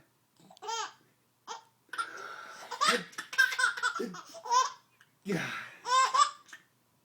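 Baby laughing in several high-pitched peals, with breathy gasps between them.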